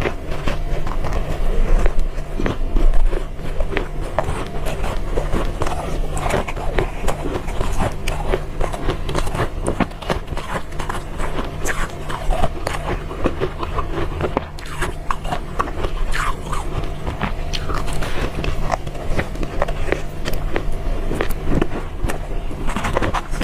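Close-up biting and chewing of soft, cotton-like ice: a dense, irregular run of small crunches and crackles, over a low steady hum.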